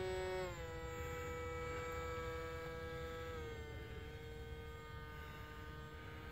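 Electric motor and propeller of a HobbyKing F6F Hellcat foam RC model plane whining in flight, the pitch dropping about half a second in and again after about three seconds, growing fainter as it flies off.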